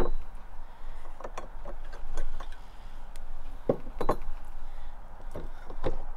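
Metal parts of a Lewmar sailing winch clicking and knocking as the winch is taken apart by hand, with the drum lifted off its chrome base. There are scattered single clicks, with a close pair about four seconds in.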